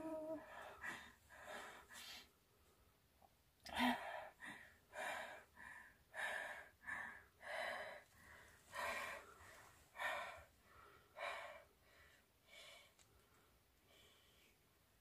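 A woman breathing hard: short, quick breaths in a steady run, with a sharp gasp about four seconds in. The breaths grow fainter and further apart near the end.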